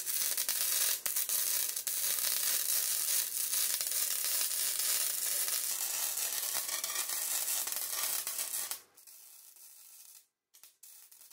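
Electric arc welding on the steel frame of a mini ATV: a loud, dense crackling hiss from the arc that drops away abruptly about nine seconds in.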